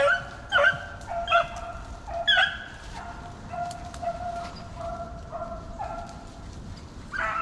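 A pack of rabbit hounds baying while running a rabbit: a few short yelps at first, then drawn-out, overlapping howling notes from several dogs.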